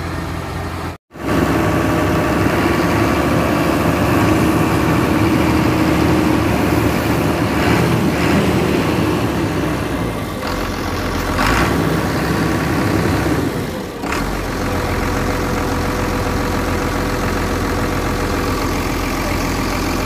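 Cat 320D2 excavator's diesel engine running steadily at idle, heard close up in the open engine bay. The sound cuts out for an instant about a second in.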